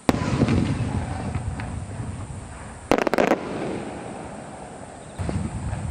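Aerial firework shells bursting: a loud boom just after the start with a long trailing echo, a quick cluster of sharp cracks about three seconds in, and another boom near the end.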